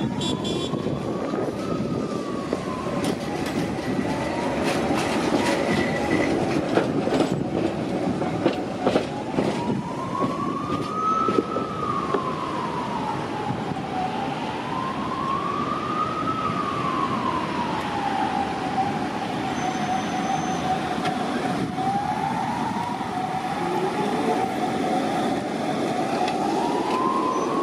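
An emergency vehicle's siren wails slowly up and down, about one rise and fall every five seconds, over steady city traffic. About eight to ten seconds in, a passing tram adds a few sharp clicks of its wheels on the rails.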